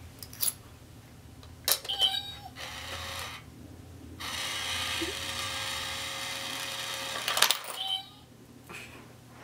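Battery-powered cat coin bank taking a coin. A coin clicks onto its plastic plate, then the small motor runs briefly. It then whirs steadily for about three seconds as the cat comes out and drags the coin in, ending in a burst of clicks as the lid snaps shut.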